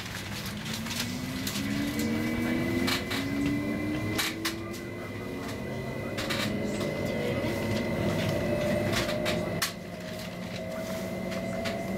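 Electric traction motors of an Sm5 (Stadler FLIRT) commuter train whining inside the carriage, several tones rising slowly in pitch as the train gathers speed. Scattered sharp clicks and knocks from the wheels and running gear sound over the top.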